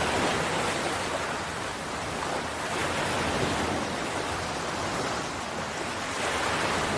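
Ocean surf: a steady, even rush of waves breaking.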